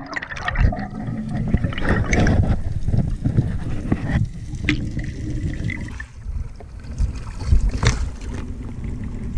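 Water sloshing and bubbling against an action camera's waterproof housing as a spearfisher swims, with many irregular low knocks and a few sharp clicks.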